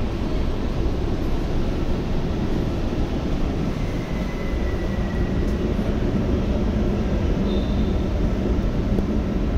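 Steady hum and rush inside a standing metro car, its air-conditioning and ventilation running, with a faint high whine that comes and goes about halfway through.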